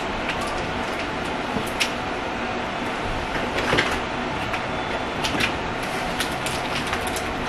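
A few scattered clicks and knocks of small objects being handled and rummaged through, loudest about three and a half seconds in, over a steady hiss.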